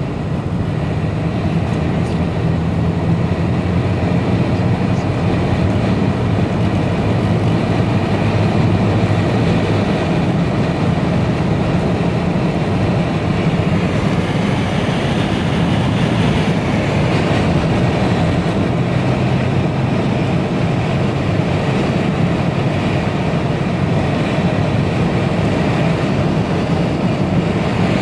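Steady road noise heard from inside a moving car at speed: the engine's low drone with tyre and wind noise over it. The low engine hum is clearest in the first ten seconds or so, then blends into the rushing noise.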